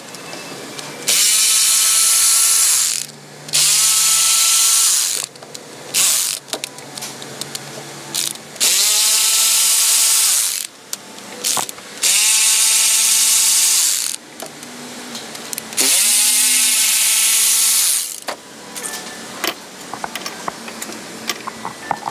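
A power tool spinning an 8 mm socket on a wobble extension, backing out the upper intake manifold bolts. It runs in five bursts of about two seconds each, every one starting with a rising motor whine, with a few short blips between them.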